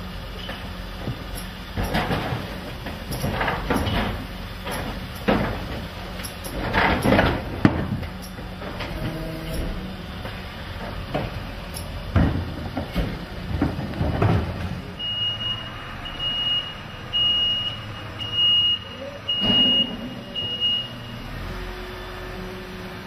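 Garbage truck with a Zoeller Medium XL refuse body working a collection: repeated bangs and clatter as wheelie bins are lifted and emptied, over the truck's running engine. Past the middle, a reversing beeper sounds about every two-thirds of a second for some six seconds.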